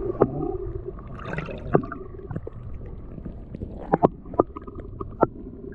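River water sloshing and gurgling around hands and a big trout as it is let go back into the current, with several sharp knocks and splashes.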